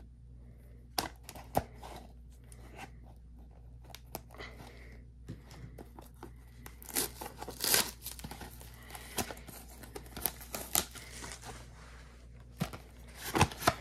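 Plastic wrapping and cardboard of a Pokémon card box being torn and crinkled open by hand: irregular sharp crackles and snaps, thickest in the middle, with a few louder snaps near the start and near the end.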